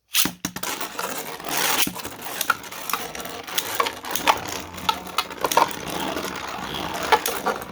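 Two 3D-printed Beyblade spinning tops launched into a plastic stadium and battling. A short rushing launch sound comes right at the start, then a steady whirr of spinning with many sharp clicks as the tops strike each other and the stadium.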